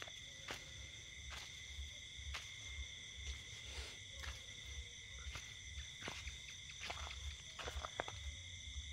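Dog gnawing on a bone: irregular sharp clicks and cracks of teeth on bone, over a steady high trilling of night insects.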